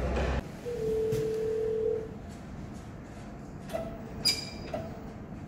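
A steady electronic tone like a telephone ringing tone, held for just over a second. Later come two short higher beeps with a sharp click between them, over faint background hiss.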